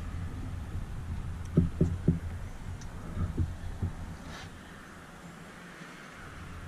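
Footsteps on an aluminium boat deck: a handful of soft, low thumps over a low steady hum, which fades away a little past the middle.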